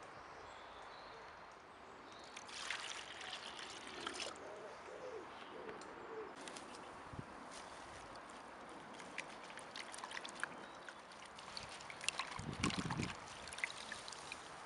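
Hands swishing a bunch of fresh coriander in a plastic bowl of water: soft, irregular splashing and trickling, with louder splashing and dripping near the end.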